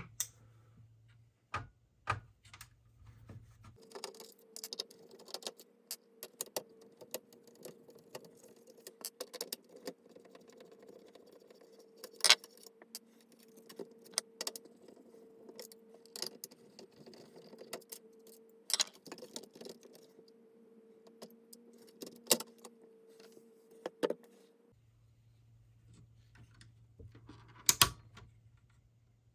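Repeated sharp clicks and small metallic rattles, like parts and tools being handled during a repair of a VHS/DVD recorder. A steady hum comes in about four seconds in and stops a few seconds before the end.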